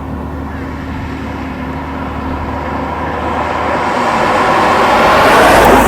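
A road vehicle passing close by, its noise swelling over a few seconds to a peak near the end and then falling away, over a steady low engine hum.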